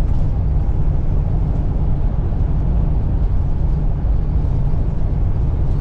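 Steady low road and engine rumble inside a moving vehicle's cabin.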